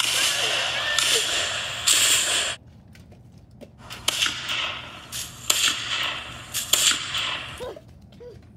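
Mock gunfire from toy guns. A dense, continuous burst of fire lasts about two and a half seconds and stops abruptly. After a short lull, more gunfire follows, with several sharp single cracks.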